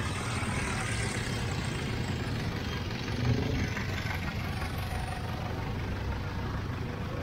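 Steady street traffic noise with motor vehicle engines running.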